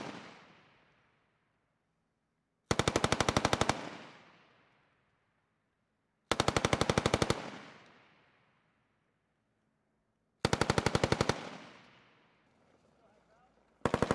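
7.62 mm M240B machine gun firing three short bursts of rapid shots, each about a second long and about four seconds apart, with a rolling echo dying away after each. A fourth burst starts at the very end.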